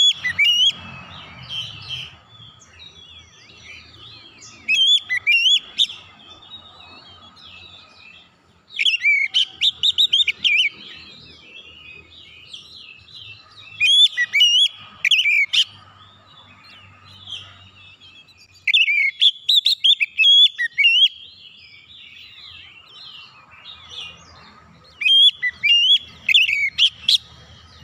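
Oriental magpie-robin (kacer) singing: loud bursts of quick, varied whistles and harsh notes, one burst every four to six seconds, with softer twittering between them.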